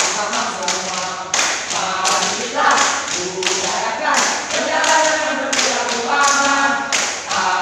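A group chanting a yel-yel team cheer in unison, with sharp claps or stomps on a steady beat about every two-thirds of a second.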